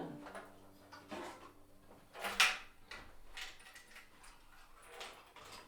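The last guitar chord dies away, then come scattered knocks and rustles of things being handled and moved, with one sharp knock about two and a half seconds in.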